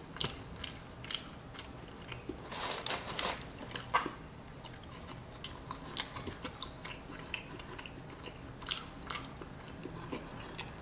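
Close-up chewing and crunching of KFC French fries, with short wet clicks from the mouth scattered throughout.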